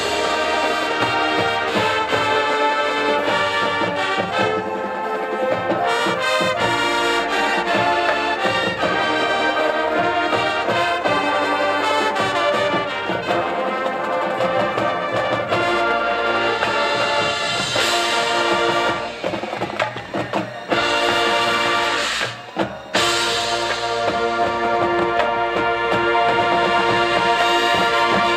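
Marching band brass and percussion playing a loud full-ensemble passage, with drum hits and a few short breaks about two-thirds of the way through.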